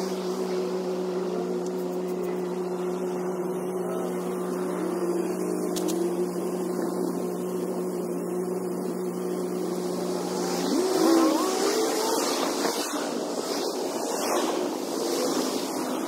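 Small engine of lawn power equipment running steadily at a constant pitch, then changing speed and pitch about eleven seconds in.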